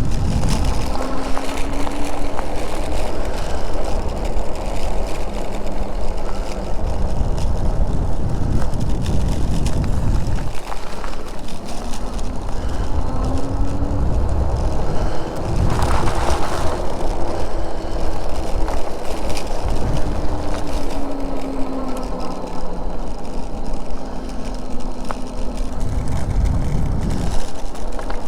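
Electric bike being ridden: wind rumbles steadily on the microphone over a faint motor whine that slowly rises and falls in pitch. About halfway through there is a brief louder rush of noise.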